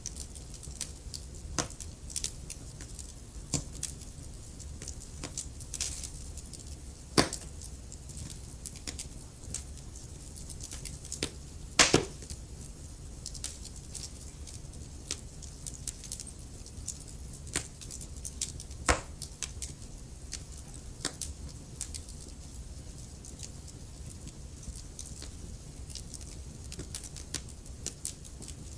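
Wood fire crackling in a fireplace: a steady run of small ticks and sharp pops from the burning logs, the loudest about twelve seconds in, over a low steady rumble.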